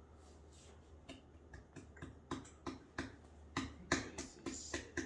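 A quick run of sharp clicks or snaps, about three or four a second, starting about a second in and loudest near the end.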